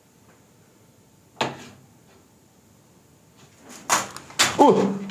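A hand knocking against old wooden furniture and debris: one sharp knock about a second and a half in, then two louder clattering knocks close together near the end, the last with a short falling squeak.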